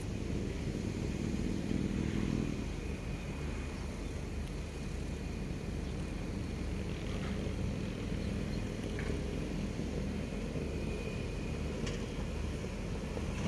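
Steady low outdoor rumble, a little louder around two seconds in, with a few faint ticks later on.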